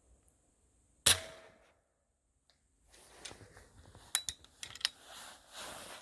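A single shot from an antique Girandoni-type .44 calibre air rifle: one sharp report about a second in that dies away quickly. Several lighter clicks and some rustling follow in the second half.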